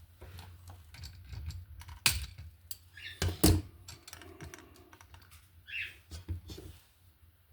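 Irregular clicks and taps of an electrical outlet and a copper wire being handled while the wire is looped around the outlet's terminal screw, with two sharper clicks about two and three and a half seconds in.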